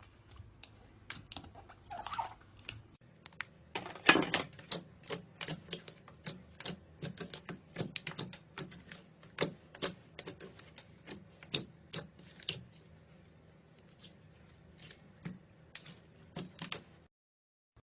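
Slime being worked by hand, giving sharp little pops and clicks at an uneven pace of a few a second.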